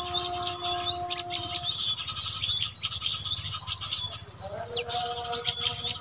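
Dense mix of small-bird chirps, twitters and whistles from a recorded 'noisy birds' combination call played through a speaker as a lure for trapping small birds. Held whistled notes at several pitches sound under the chirping at the start, fade about two seconds in, and return after about four and a half seconds.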